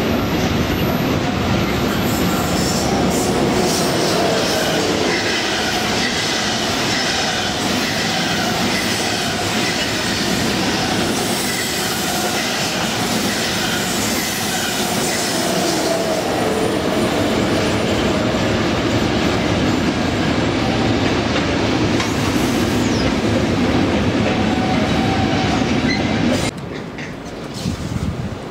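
A Deutsche Bahn ICE high-speed train runs past close by on the near track: a steady, loud rush of wheels on rails with some clatter. It cuts off sharply near the end.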